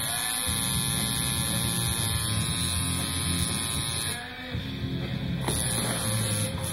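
Coil tattoo machine buzzing steadily over background music. About four seconds in the buzzing stops, then runs again for about a second.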